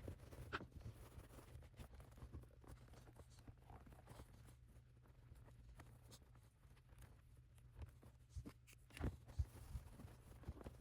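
Near silence: faint scattered taps and rustles of handling over a low steady hum, with a few sharper taps about nine seconds in.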